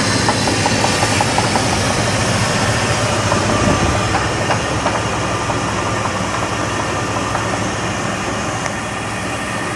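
2000 Jeep Grand Cherokee's 4.7-litre V8 idling with a quick, regular ticking knock that the owner places in the upper engine.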